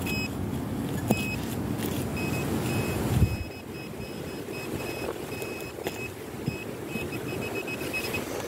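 Handheld metal detecting pinpointer beeping in short, repeated high beeps as it is probed through loose soil toward a buried metal target, the beeps coming closer together near the end. A low rumble of wind on the microphone stops about three seconds in.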